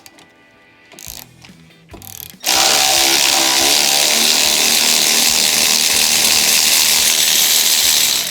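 A few light ratchet-like clicks, then about two and a half seconds in a power tool starts abruptly and runs loudly and steadily for about six seconds, backing out one of the jet ski's jet-pump mount bolts.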